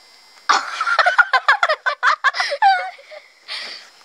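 Girls giggling and laughing in a quick run of short bursts, starting about half a second in and trailing off after about three seconds.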